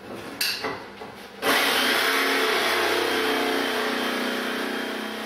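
Handheld electric jigsaw started about a second and a half in and cutting through a clamped wooden paddle blank, running steadily. A few light knocks from the saw being set against the board come just before it.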